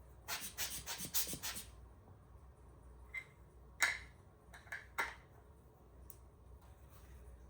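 A quick run of rubbing strokes, as when a lens or camera body is wiped with a cloth, then several separate sharp clicks and taps as the camera gear is handled.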